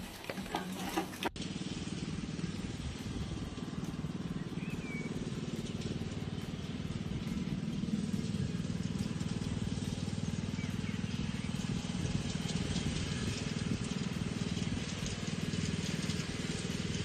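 Lawnmower engine running steadily, starting suddenly about a second in.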